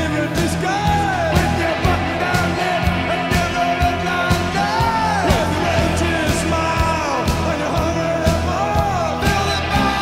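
Music track with a singing voice over a steady beat.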